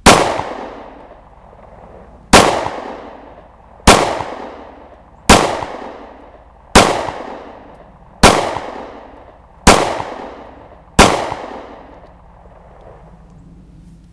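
Eight 9mm pistol shots from a Smith & Wesson M&P Shield firing Tula 115-grain target rounds, about one and a half seconds apart, each trailing off in a fading echo. The pistol cycles every round with no failure to feed or eject, emptying its 8-round magazine.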